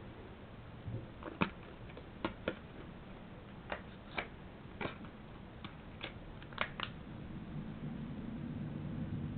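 Sharp clicks and taps from handling a Samsung Galaxy S smartphone, about a dozen at irregular spacing, some in quick pairs. A low hum comes up near the end.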